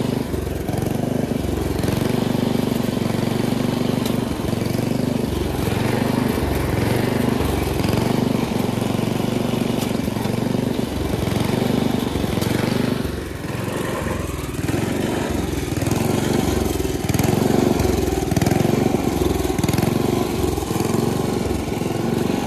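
A 1960s Simplicity Sno-A-Way snowblower's small gasoline engine running as the machine works through snow. Its sound swells and drops unevenly every second or so.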